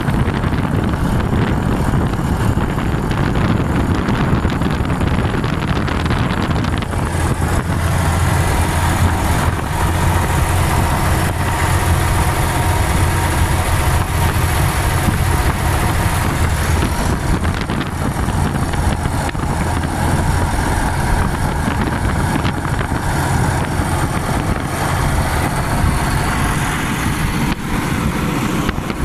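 Vintage car's engine running steadily under way, with wind and road noise, heard from on board the car. A low engine hum grows stronger about seven seconds in and eases off again past the middle.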